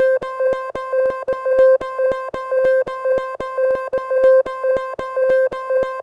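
Speaker-cleaning (water-eject) tone: a steady, buzzy, mid-pitched tone chopped into short pulses several times a second, used to shake water out of a speaker grille.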